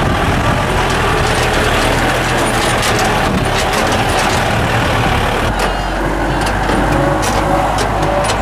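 A vehicle driving on a rough dirt road: steady engine and road noise with frequent rattles and knocks.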